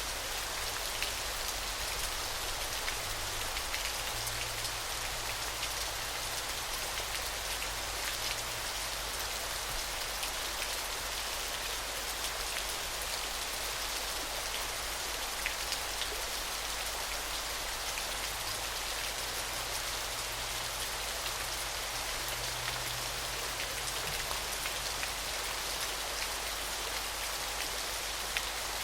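Waterfall: a steady rush of falling water, peppered with many small splashes and drips.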